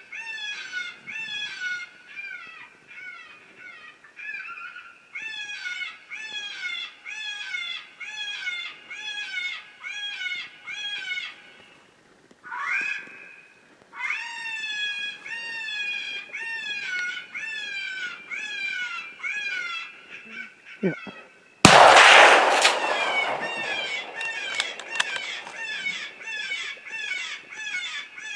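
Predator call playing a repeated animal distress cry, high cries each falling in pitch at about two a second, with a gap about halfway through. A loud rifle shot cracks out about 22 seconds in while the cries carry on.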